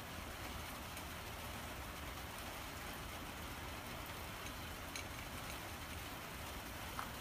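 A steady hiss with a low rumble, with two faint clicks about five and seven seconds in, as a calico cat eats from a small metal bowl.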